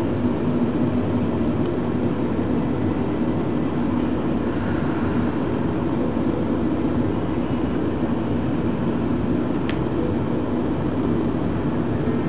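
Steady low mechanical hum that does not change, with a single faint click near the end.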